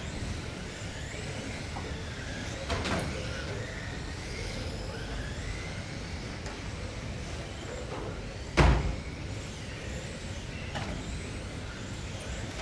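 Small electric GT12 radio-control racing cars running on an indoor track, their motors whining and wavering up and down in pitch. A sharp knock comes about three seconds in, and a louder single bang about eight and a half seconds in.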